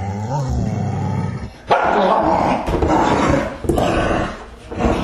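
Dogs snarling and growling. The harsh growls break in suddenly about a second and a half in and come in several bursts with short pauses between them.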